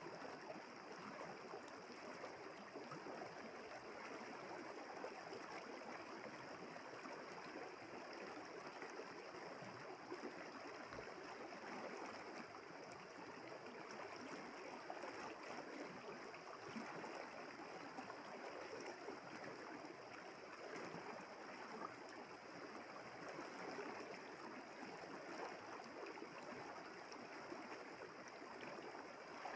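River water flowing steadily, with an even rushing sound that does not change. A steady high-pitched band of sound sits above it throughout.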